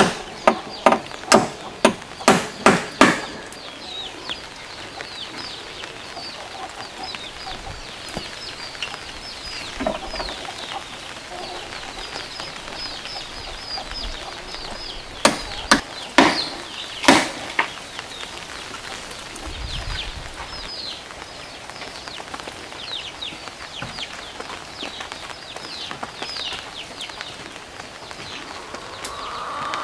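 A hammer knocking on the wooden pigeon house: a quick run of strikes about two a second at the start, then four more a little past halfway. Between the strikes, birds chirp steadily in short, high, falling calls.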